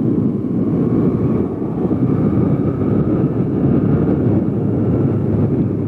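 Steady wind and road rumble on a motorcycle rider's helmet-height microphone while riding, with a faint engine whine above it.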